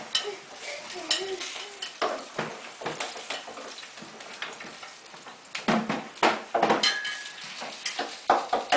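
Sausages sizzling in a frying pan, with a metal utensil clinking and scraping against the pan as they are handled; a run of louder clatters comes about six seconds in and again near the end.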